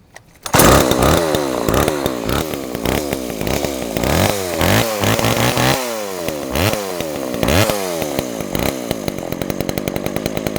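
Homelite XL two-stroke chainsaw catching about half a second in and revved up and down again and again, then settling into a steadier run near the end. It is an old, long-stored saw starting up.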